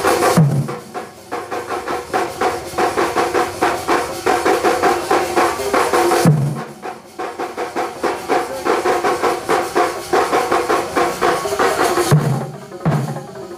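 Thambolam percussion band: many stick-beaten drums playing a fast, dense rhythm together. Deep bass strokes come about half a second in, again about six seconds in, and twice near the end, each followed by a brief lull before the rapid beating builds again.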